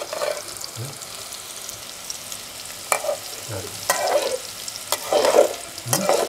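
Bitter gourd slices sizzling in oil in a metal pan, with a slotted metal spatula scraping and clinking against the pan several times as they are stirred.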